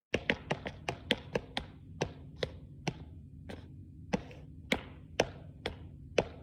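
A series of sharp taps or knocks on a hard surface, quick at first and then slowing to about two a second, over a low steady hum.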